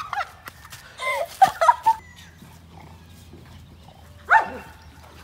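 A boy yelping and barking in imitation of a dog: a short run of pitched calls about a second in, then one more sharp yelp about four seconds in.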